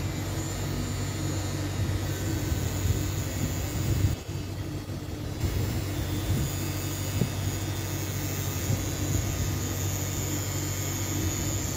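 Pen-style rotary tattoo machine running steadily while needling ink into skin, a constant low buzz.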